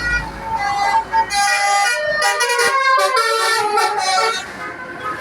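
Basuri telolet bus horn playing a quick tune of stepped, changing notes, several horn tones sounding together. A low engine rumble underneath stops about a second and a half in.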